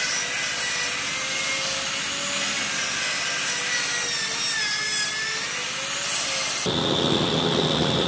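Sandpaper rubbing on a grooved wooden dagger handle spinning on a motor, the motor's whine wavering in pitch as the paper is pressed. Near the end it cuts abruptly to a gas torch flame hissing steadily as it heats the dagger's tang.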